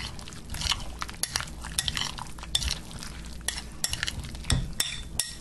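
Metal spoon stirring oil-dressed chopped tomatoes and onion in a glass bowl: a continuous wet mixing noise with irregular clinks of the spoon against the glass.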